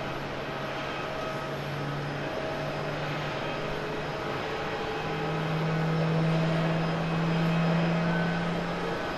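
Japan Airlines Boeing 737-800's twin CFM56 jet engines on final approach to land, a steady drone with a low hum, swelling louder about halfway through as the airliner nears the runway.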